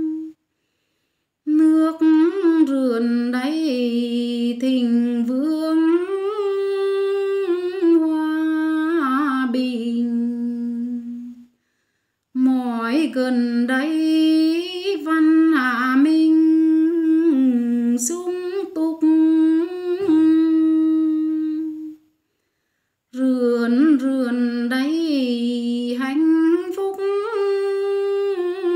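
A woman singing a Tày folk song solo with no accompaniment, in long held notes with slides and wavering ornaments. Three phrases are broken by two short silences.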